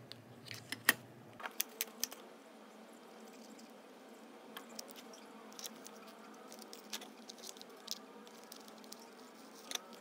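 Light clicks and taps of small objects being handled at a workbench, a cluster of them in the first two seconds with the sharpest about a second in, then scattered lighter ticks, over a faint steady hum.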